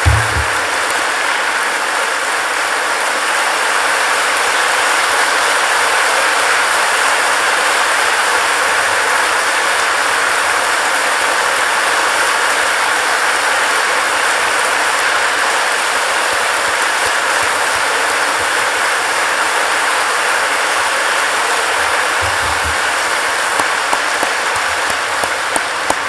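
A large audience applauding, a dense, steady clapping that begins to die away near the end.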